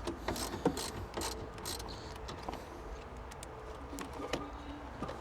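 Irregular light metallic clicks and taps of hand tools being handled: a small socket wrench with a 10 mm socket and extension.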